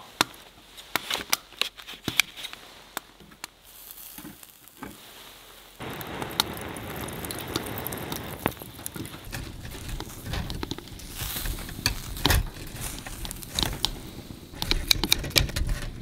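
Beef striploin sizzling on a charcoal grill. The sizzle comes in suddenly about six seconds in and keeps going with scattered sharp clicks. Before that there are only faint, sparse clicks.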